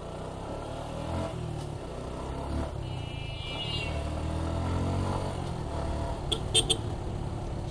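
Suzuki Gixxer 155's single-cylinder engine running under way, with road and wind noise, and the engine note rising briefly about four seconds in. A brief high tone about three seconds in and three short sharp high sounds a little after six seconds are also heard.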